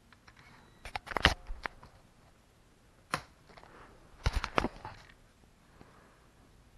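Handling noise: a run of sharp clicks and knocks about a second in, a single click near three seconds, and another cluster of clatters just after four seconds, as a hand grabs and moves the camera on the floor.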